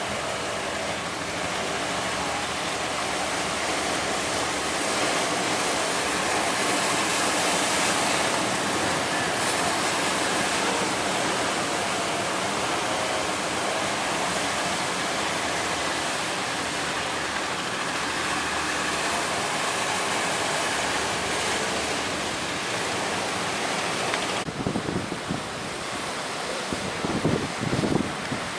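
Steady roar of big surf breaking. Near the end, wind buffets the microphone in gusts.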